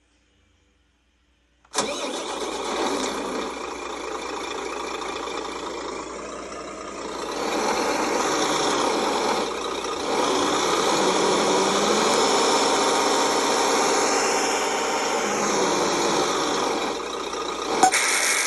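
GT Power sound module for a model truck playing a simulated truck engine through a small speaker. It starts up abruptly about two seconds in, idles, then revs up and holds higher for several seconds before easing back, with a brief loud burst near the end.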